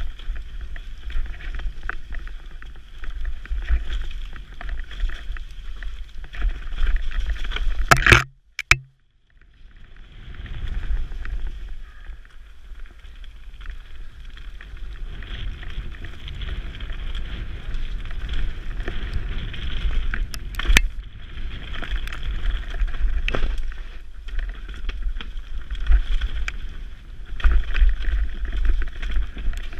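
Mountain bike riding down a dirt trail: wind buffeting the microphone over steady tyre noise and knocks and rattles of the bike over bumps. About eight seconds in comes a loud knock, after which the sound nearly cuts out for about a second.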